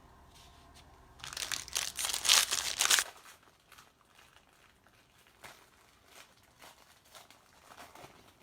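Baseball card pack wrapper crinkling and tearing as it is ripped open, loud for about two seconds starting a second in. After that come light rustles and ticks as the cards are handled.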